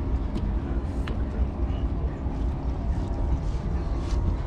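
Fishing boat's engine running steadily, a low, even drone with a constant hum and a few faint clicks on top.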